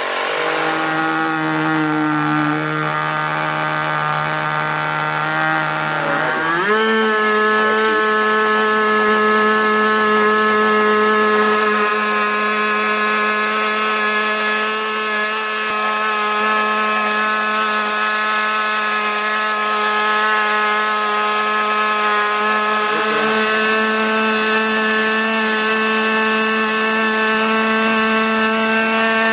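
Small single-cylinder RC nitro glow engine running on a run-in bench during break-in. It runs steadily at a lower speed, then about six seconds in its pitch rises quickly and it holds a higher, steady speed for the rest of the time.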